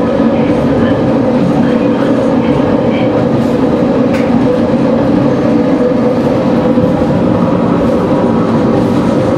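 Sanriku Railway single-car diesel railcar running along the line, heard on board: a steady drone of engine and wheels on the track, with a few light clicks from the rails.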